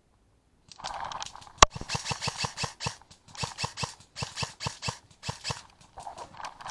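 Airsoft gun firing in short full-auto bursts, each a quick run of sharp snapping shots at about eight a second, with brief gaps between bursts. One single, louder snap comes just before the first burst.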